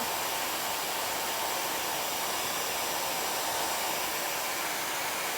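Hair dryer blowing steadily, a constant rush of air with a thin, steady motor whine.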